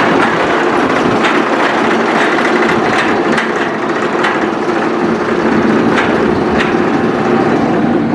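Steel roller coaster train rolling along its track: a loud, steady rumble from the wheels with a running clatter of clicks and clacks.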